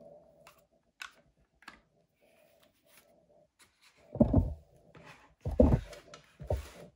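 Handling noise from a Milwaukee M18 Fuel cordless circular saw being turned over and set down on cardboard: a couple of light clicks about a second in, then three dull thumps in the second half as the saw is laid down on its base.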